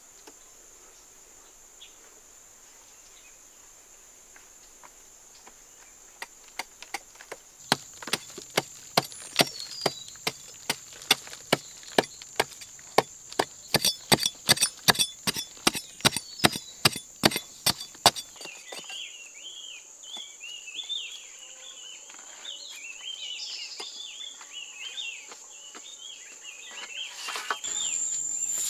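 A metal-bladed hand tool striking and chipping into a hard clay-earth wall, sharp impacts about two to three a second for some ten seconds, starting about a quarter of the way in. Under it runs a steady high insect whine, and chirping calls follow once the strikes stop.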